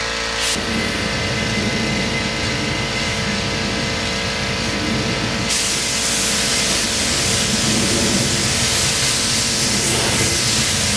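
Air spray gun hissing steadily as it lays clear coat onto a motorcycle fairing, with a steady hum of several tones underneath. The hiss turns brighter about halfway through.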